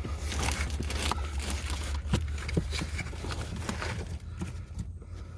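Scattered clicks and knocks of hand work behind a truck's dashboard panels, two of them sharper about two seconds in, over a steady low hum.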